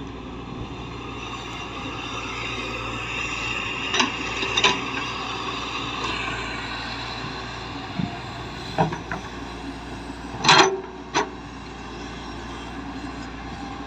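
Earthmoving machinery running steadily, with scattered metallic clanks and knocks; the loudest comes about ten and a half seconds in, followed by a smaller one.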